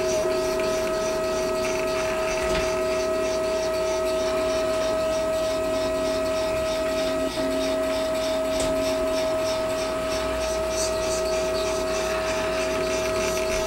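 3D printer's stepper motors whining at a steady pitch as the print head lays down filament, with one brief break in the tone about halfway through.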